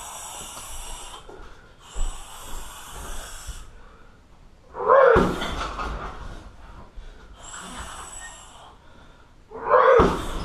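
Two heavy strikes, about five seconds apart, thudding into a car tyre: a Muay Thai fighter's conditioned shin kicks. Between them come long hissing exhalations.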